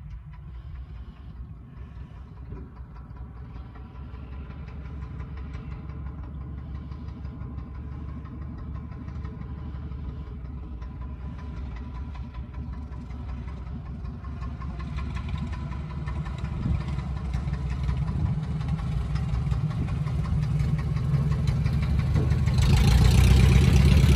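1945 Luscombe 8A's four-cylinder Continental A-65 engine and propeller running at low power while the airplane taxis. The sound grows steadily louder as it approaches and is loudest near the end as it passes close.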